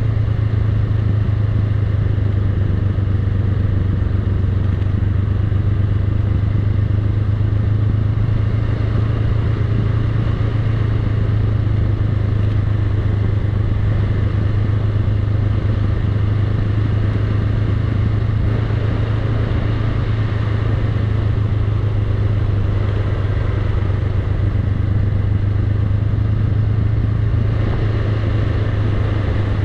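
Honda Rebel 500's parallel-twin engine running at a steady, unchanging note while the motorcycle is ridden.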